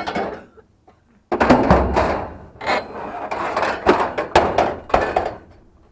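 Scrap items being shoved and shifted around to make room in a cargo space: after a brief pause, a busy run of thuds, knocks and clatters starting about a second in.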